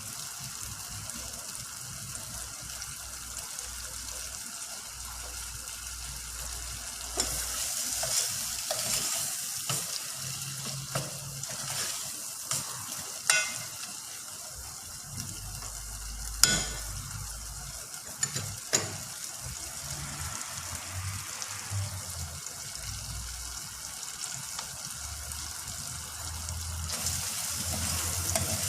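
Food sizzling as it fries in a pan while being stirred, with a few sharp clacks of a utensil against the pan. The sizzle grows louder about a quarter of the way in and again near the end.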